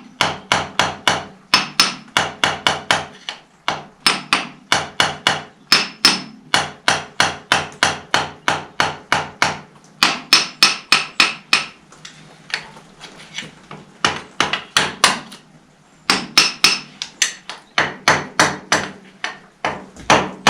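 Hammer tapping repeatedly, about three to four blows a second, in runs broken by short pauses, with lighter, sparser taps in the middle stretch.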